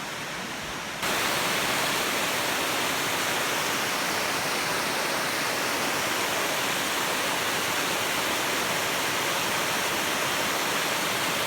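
Waterfall's water rushing in a steady, even hiss, jumping louder about a second in and holding steady after that.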